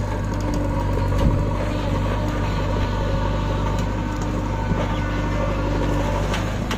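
Tractor running steadily, a constant low hum with an even mechanical drone over it.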